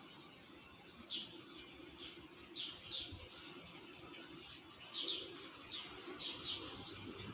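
Small bird chirping: short high chirps, often in quick pairs, repeated every second or so, over a faint steady background hiss.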